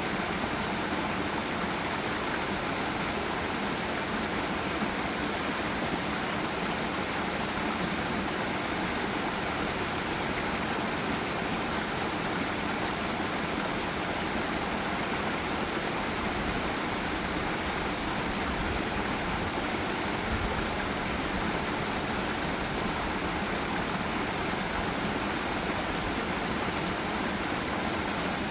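Forest waterfall and river rushing steadily, an even hiss of falling and flowing water with no breaks.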